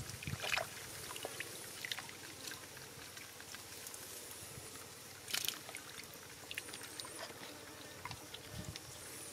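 Small fish splashing and flapping in a shallow trickle of muddy water: scattered light flicks over a faint steady trickle, with two louder splashes about half a second in and about five seconds in.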